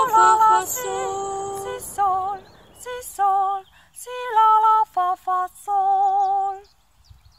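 Female voices singing a canon in G major a cappella on solfège syllables; the parts drop out one after another until a single voice sings the last phrases, ending about two-thirds of the way in.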